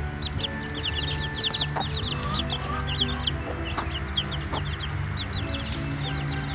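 A flock of baby chicks peeping constantly, many short high cheeps overlapping, over soft background music.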